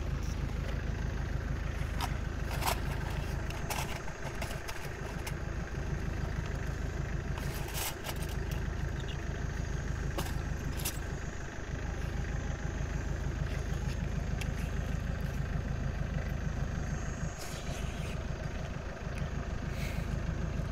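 A vehicle engine idling steadily, a low even rumble, with a few sharp clicks scattered over it.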